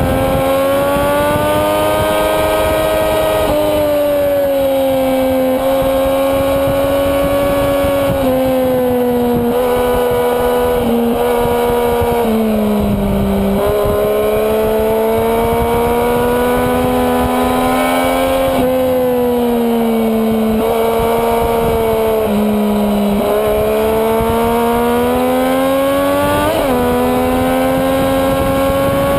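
Sportbike engine at racing speed on track, heard from onboard. Its pitch climbs and falls as the rider accelerates and brakes through corners, with several sudden steps as gears are changed and a quick rev blip near the end.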